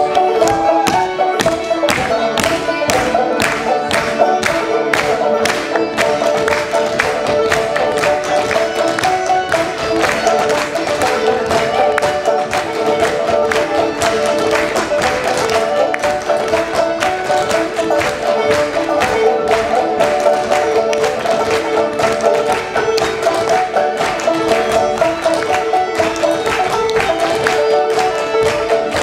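Live folk band playing a hoedown tune, with the dancers' clogging taps striking a wooden floor in a brisk, steady rhythm over the music.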